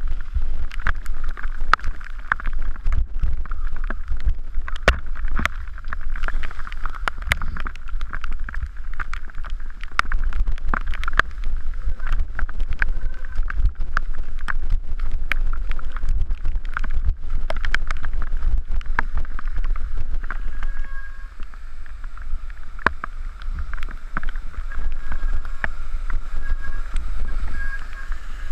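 Mountain bike running fast down a rocky, wet dirt trail: wind buffeting the microphone as a steady low rumble, with frequent sharp knocks and rattles from the bike over rocks and roots.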